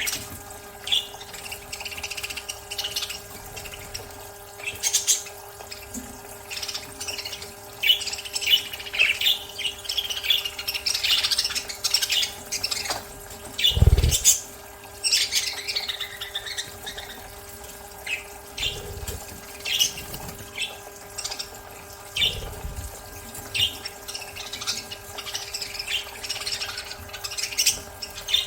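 Budgerigars chirping and squawking in many short, rapid calls, over a steady low hum. One loud thump about halfway through.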